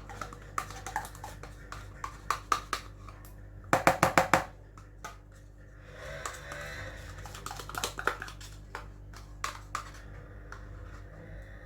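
A spoon clicking and scraping against a bowl and a yogurt pot as yogurt is spooned into the cheesecake mixture. There are scattered clicks, a quick run of about six taps a little before the middle, and some scraping just after it, over a steady low hum.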